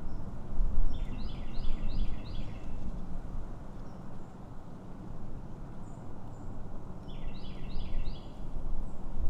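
Strong wind buffeting the microphone with a gusting rumble. Over it, a small bird calls twice: a quick run of four or five high chirps about a second in, and again near the end.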